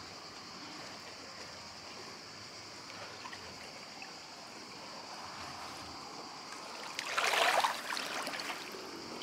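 Swimming pool water trickling and lapping steadily, with a louder splash and swish of water about seven seconds in as someone moves through the pool.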